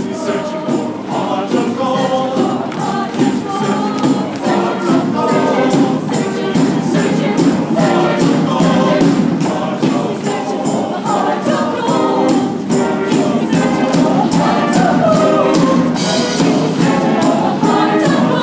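A mixed show choir singing an upbeat number over accompaniment with a steady beat. A bright crash comes near the end.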